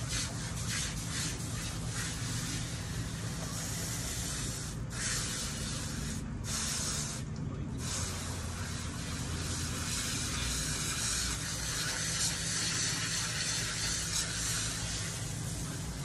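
Garden hose spraying water onto a wet dog's coat during a rinse, a steady hiss with water splashing onto concrete. The spray cuts out briefly three times around the middle.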